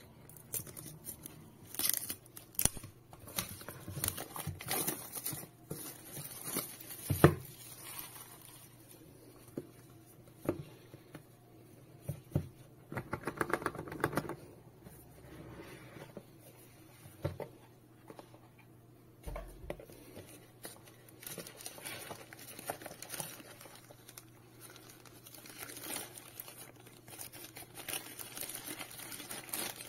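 Handling sounds of a small boxed product being unpacked: a utility knife slitting the cellophane shrink-wrap, the plastic film tearing and crinkling, and sharp taps and knocks of the cardboard box, the loudest about seven seconds in. A rapid rattling scrape comes about thirteen seconds in, and from about twenty seconds tissue paper rustles and crinkles steadily.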